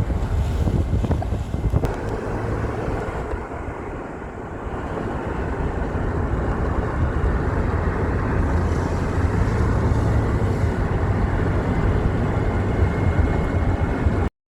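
Wind buffeting the microphone over a steady low rumble, cutting off suddenly near the end.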